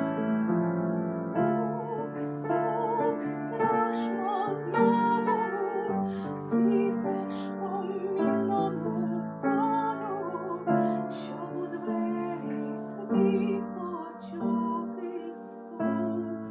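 Closing bars of a slow song: piano chords with a woman's voice singing a melody with vibrato over them, growing gradually quieter.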